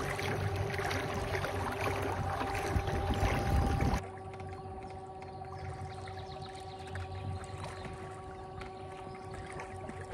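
Electric trolling motor driving a small boat, running with a steady whine, with water churning loudly in its wake. About four seconds in the churning drops away, leaving the steady whine over a soft wash of water along the hull.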